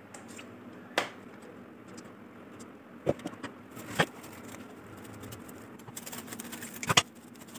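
A few light knocks and taps from a spatula against a steel bowl and plastic container, then soft rustling of cling film being pulled over the container near the end.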